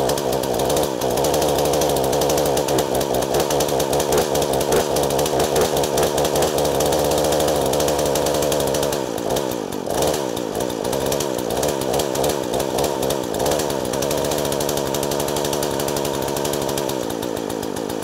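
Poulan Woodshark two-stroke chainsaw engine running on its first run after ten years in storage, the throttle feathered with small blips to keep it from dying. The revs stumble briefly about halfway through, steady again, then fall to a lower idle near the end.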